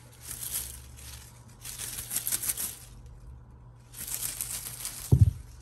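Three bursts of crinkly rustling, each about a second long, followed by a single dull thump about five seconds in.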